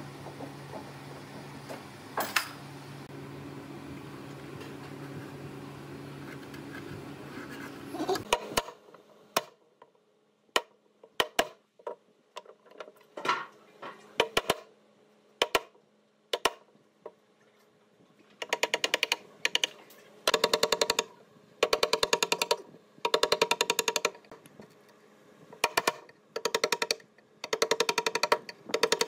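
A steady low hum with a couple of sharp clicks for the first eight seconds or so. Then a steel chisel cutting a small recess into the edge of a wooden cabinet frame: scattered sharp taps, and from a little past halfway, runs of rapid clicking strikes, each about a second long.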